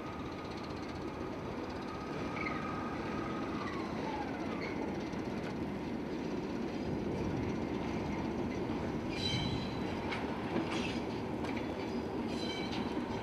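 Class 73 electro-diesel locomotive moving a rail head treatment train slowly through a yard: a steady rumble of the locomotive and wagons, with a held whine that drops in pitch about four seconds in. From about nine seconds in, short high squeals of wheels on curved track come again and again.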